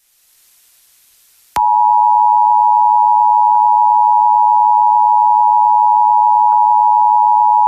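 Emergency Alert System attention signal: after about a second and a half of faint hiss, a loud, steady two-tone sound (853 and 960 Hz together) starts suddenly over the radio and holds. It heralds an EAS message, here a statewide Required Monthly Test.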